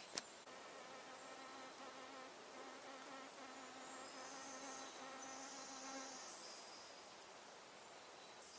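A flying insect buzzing with a faint, steady hum that wavers slightly in pitch and fades out about six seconds in. A single sharp click sounds right at the start.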